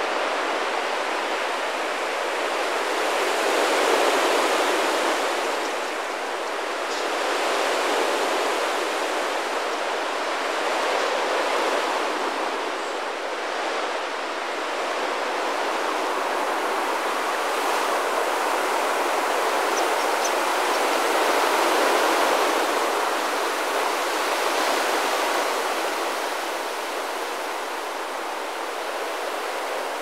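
The rushing murmur of thousands of European starlings' wingbeats in a murmuration flock, a dense, even whoosh that swells and eases several times as the flock wheels nearer and farther.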